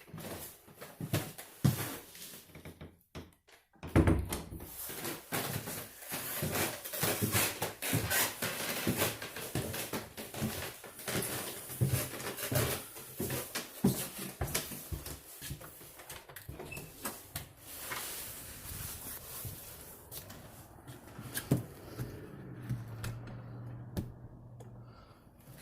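Footsteps and handling noise of someone walking with a handheld camera: a dense run of irregular knocks and scuffs, with a low steady hum joining near the end.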